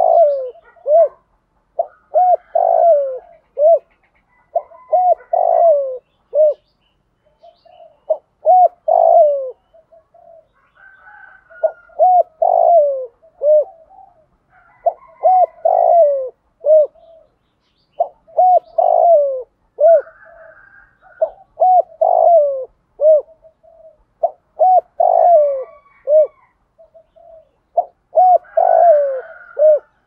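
Spotted dove cooing in the 'thổ' call style that keepers use on a decoy bird to lure wild doves: each phrase is a few short rising-and-falling coos ending in a longer falling note, repeated about every three to four seconds.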